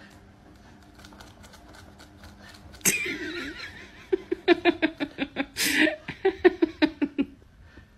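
A person laughing in quick rhythmic bursts, about four or five a second, from about four seconds in to about seven seconds, after a sudden breathy burst about three seconds in.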